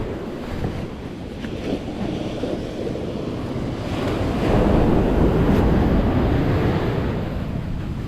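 Small surf waves washing onto the beach, with wind rumbling on the microphone; the wash swells louder about halfway through.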